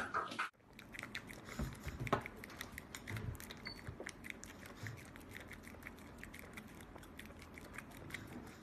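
A small white dog lapping a drink from a glass: quick, repeated wet licking clicks, several a second.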